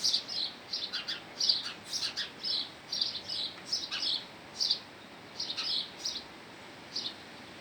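Small birds chirping: short, high chirps repeated two or three times a second, thinning out over the last couple of seconds.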